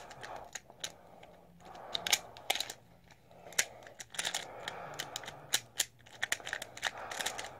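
Pyraminx twisty puzzle being scrambled by hand: a quick, irregular run of plastic clicks as its layers and tips are turned.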